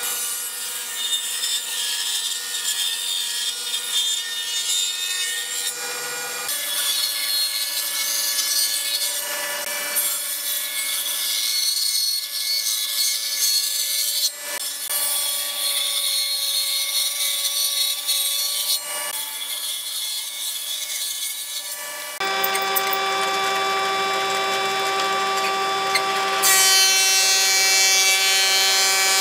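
A table saw runs and rips pine boards lengthwise, its motor humming steadily under the hiss of the blade in the wood, across several abrupt cuts. About three quarters of the way through, it gives way to a combination planer's thicknesser running with a louder, steadier hum as a board is fed through.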